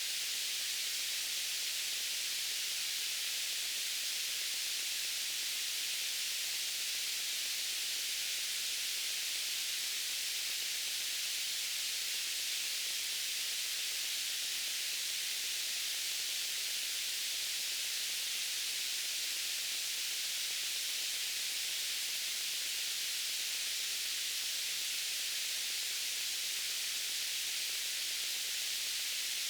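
Steady white noise: an even, unchanging hiss weighted toward the high end, with little bass.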